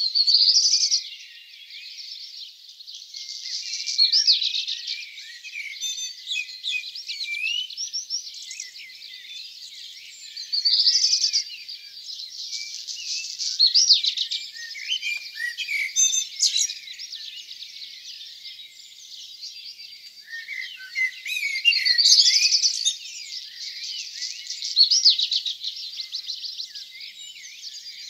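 Dawn chorus of several songbirds singing at once: a dense background of chirps and trills, with louder song phrases standing out every few seconds.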